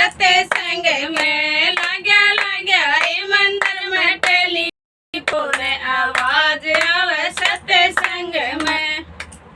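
A woman singing a Hindi bhajan refrain, accompanied by rhythmic hand-clapping. The sound drops out completely for a moment about halfway through.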